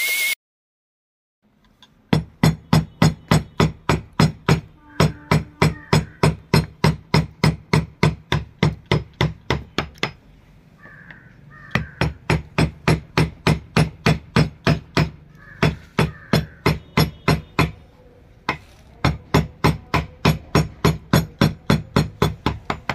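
Hammer striking a carving chisel into teak wood, cutting flower-petal outlines. It makes rapid, even taps about four a second, in three runs with short pauses between them.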